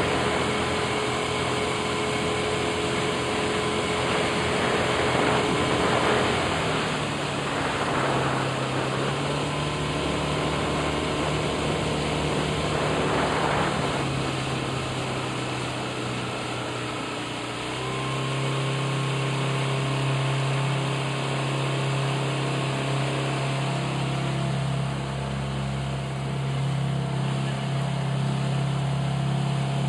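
Small boat's outboard motor running steadily under way, its engine note stepping to a different pitch about seven seconds in and again about eighteen seconds in, over a steady hiss.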